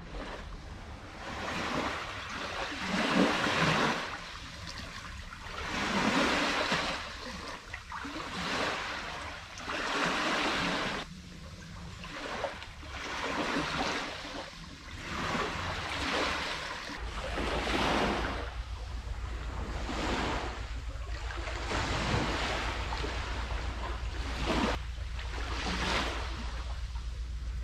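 Small sea waves washing onto a sandy beach, a surge of surf rising and falling about every two seconds.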